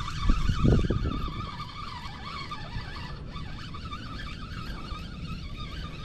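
Spinning reel being cranked to wind in line with a fish on, its gears giving a whirr that wavers up and down with each turn of the handle. There is a brief low thump about half a second in.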